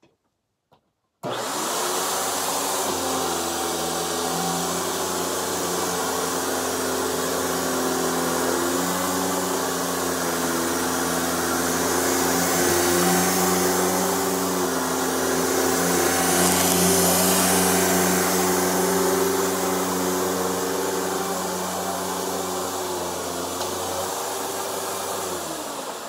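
Eureka Victory upright vacuum cleaner switched on about a second in and running steadily as it is pushed over shredded paper on carpet. Near the end it is switched off and its motor winds down.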